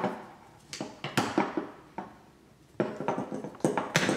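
Clacks and knocks of a folding aluminium camera shoulder rig being handled and unfolded on a countertop: a few sharp knocks about a second in, more near three seconds, and the loudest near the end.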